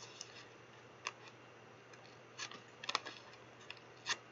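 Scissors cutting across a sealed packet: a handful of short, separate sharp snips and clicks.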